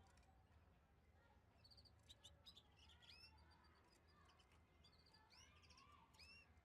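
Male crested canary singing faintly: a run of short rising whistled notes and quick repeated chirps, which becomes busier from about two seconds in.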